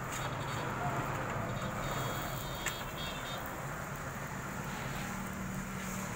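Steady low rumble of roadside traffic, with a metal spatula clicking once against an iron tawa a little past the middle as a paratha is pressed and turned on it.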